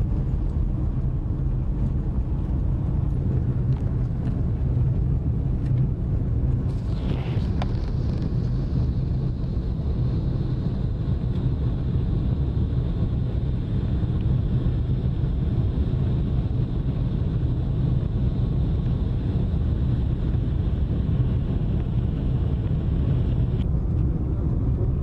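Car driving on a dirt road, heard from inside the cabin: a steady low drone of engine and tyres. A faint high whine comes in about seven seconds in and stops shortly before the end.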